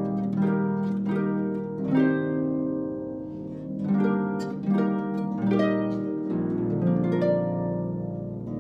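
Solo harp playing a hymn: plucked notes and chords that ring on and overlap, struck about every half second to second.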